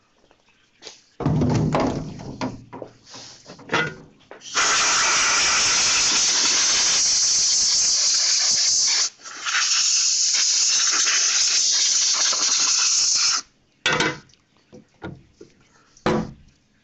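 Compressed air blowing in two long hissing blasts of about four seconds each, with a short break between, after a few seconds of metal knocks and clatter; a couple of short knocks near the end.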